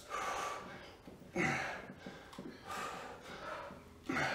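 A person breathing hard while doing dumbbell bicep curls: four sharp breaths out, evenly spaced a little over a second apart, some with a short grunt at the start.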